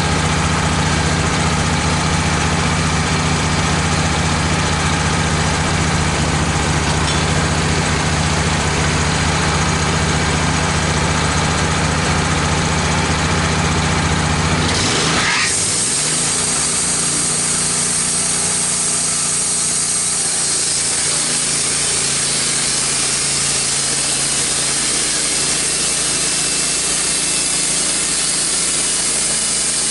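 Wood-Mizer LT15 portable bandsaw mill running: a steady low engine hum, then about halfway through the low hum drops away and a steady high-pitched hiss takes over as the band blade saws through the red oak log.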